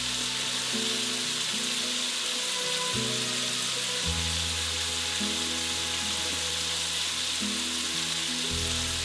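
Diced pancetta frying in a non-stick pan, a steady sizzle.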